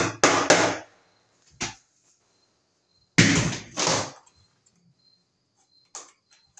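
Claw hammer driving the nails of a plastic electrical box into a wooden stud: three quick blows in the first second and a lighter one shortly after. Two more loud knocks follow about two seconds later.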